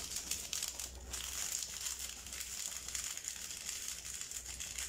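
Small plastic seasoning sachet crinkling as it is handled and torn open by hand, with a few light clicks near the start.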